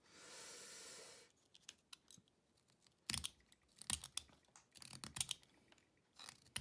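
Box cutter blade whittling a small block of soft wood into a lure body: one steady scraping cut lasting about a second, then a series of short, crisp slicing scrapes and clicks as shavings come off.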